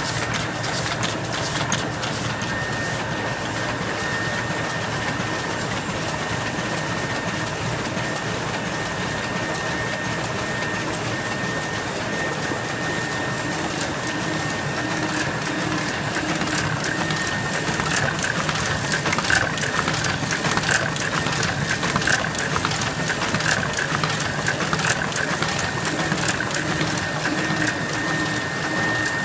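Two-colour Heidelberg GTO 52 sheet-fed offset press running at speed: a steady mechanical clatter of rapid ticks, with a thin high tone held throughout.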